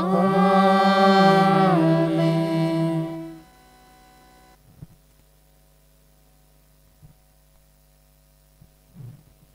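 A sung 'Amen' on a few held, stepped notes, which stops about three and a half seconds in. After it there is a faint steady hum with a few soft clicks.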